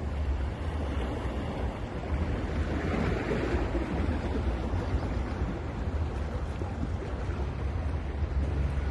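Ocean waves washing onto a beach, with a wave breaking and swelling louder about three seconds in, over a steady low rumble of wind on the microphone.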